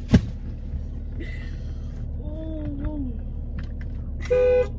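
Car horn sounding once, a flat steady blare of about half a second near the end, over the low rumble of the moving car heard from inside the cabin. A sharp knock comes right at the start.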